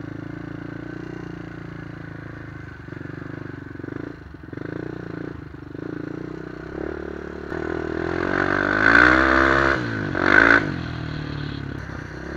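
Honda 400EX quad's four-stroke single-cylinder engine, fitted with an aftermarket White Bros exhaust, running steadily while riding, then revving up hard twice about two-thirds of the way in before dropping back to a steady run.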